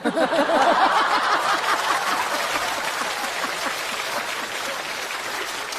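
Studio audience laughing and applauding after a punchline, loudest at the start and slowly dying down.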